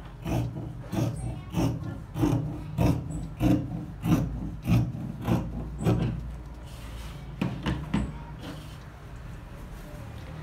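Scissors cutting through cotton tricoline fabric on a table, a steady run of snips about two to three a second. The snipping stops about six seconds in, with a few more snips near eight seconds.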